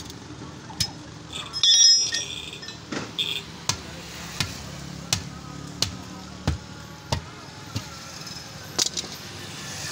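Hammer blows on a punctured tractor front tyre and its steel rim: a loud metallic clang near two seconds in, then a steady series of knocks about one every 0.7 seconds.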